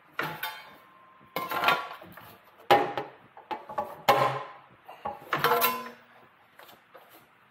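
Thin sheet metal clattering and ringing as it is bent on a bending machine: about six loud metallic clangs spread over the first six seconds, each ringing briefly, then only faint knocks.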